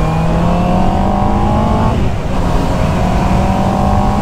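Honda CB650R's 649 cc inline-four engine accelerating hard, its pitch climbing, dropping at an upshift about two seconds in, then climbing again. Wind and road noise underneath.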